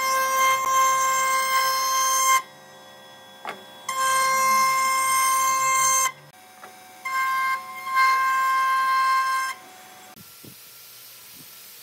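A table-mounted router cutting a pine board in three passes: each pass is a loud, steady high whine that stops abruptly. Between the passes the running router is much quieter.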